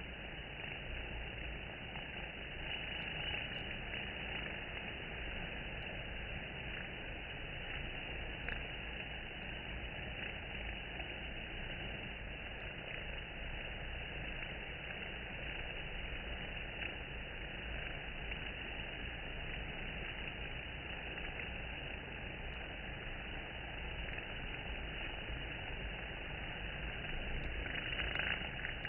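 Honeybees crowding a wooden hive entrance: a steady, noisy hum of the colony with no breaks.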